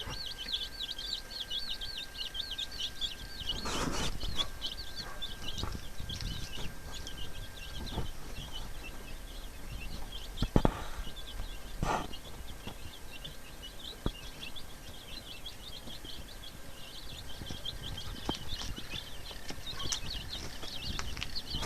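A brood of young chicks peeping in rapid, high chirps, with a few scattered knocks.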